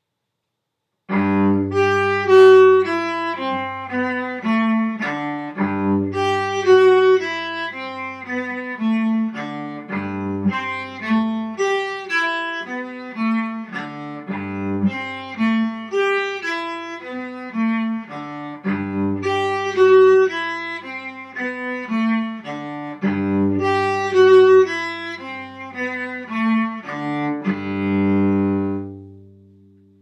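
Solo cello bowed in fourth position: a slow melody of separate notes with a low note sounding beneath it at intervals, starting about a second in and ending on a long held note that dies away.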